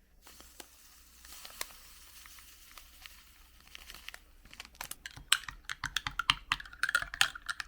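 Crinkly packaging being handled and torn open: a faint rustle, then a dense run of sharp crackles in the second half, typical of a medicine sachet being opened.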